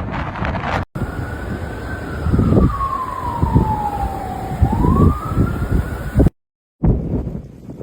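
Emergency vehicle siren wailing: its pitch slides slowly down over a couple of seconds, then rises again, over wind noise and low rumble. The siren breaks off suddenly near the end, and the wind noise carries on.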